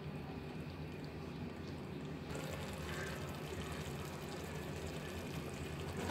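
Thick beef spleen curry simmering in a pan over a low flame, the gravy bubbling and sizzling softly and steadily, a little brighter from about two seconds in.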